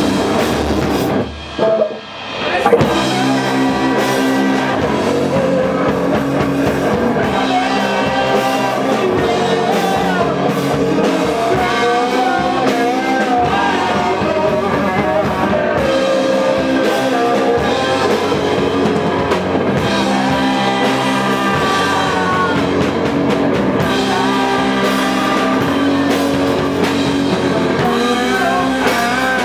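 Rock band playing live on electric guitar, bass and drum kit, with a singing voice. The band breaks off twice for a moment in the first few seconds, then plays on steadily at full volume.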